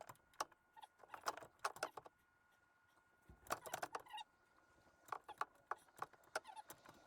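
Faint, scattered metallic clicks and clinks in short clusters with quiet gaps: tools and metal parts being handled as the A/C compressor is worked into place.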